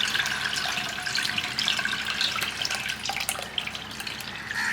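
Tamarind water being poured through a strainer: a steady trickle and splatter of liquid that eases off toward the end, as the extract is strained to leave the grit behind.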